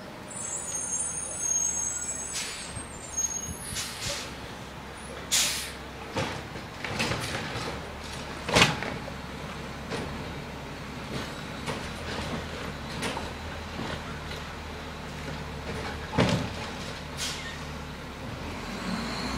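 Garbage truck's diesel engine running as it drives along the street, with a brief high squeal near the start, a hiss of air brakes about five seconds in, and several sharp knocks and clanks, the loudest near the middle.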